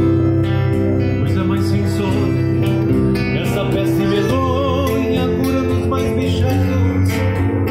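Gaúcho folk music played live on a piano accordion and a nylon-string classical guitar. A man's voice comes in singing about halfway through.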